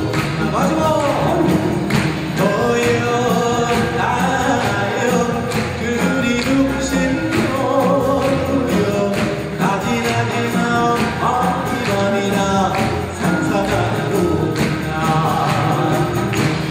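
Male Korean folk singer (sorikkun) singing through a microphone, accompanied by a Korean traditional orchestra of gayageum zithers, bamboo flutes and percussion.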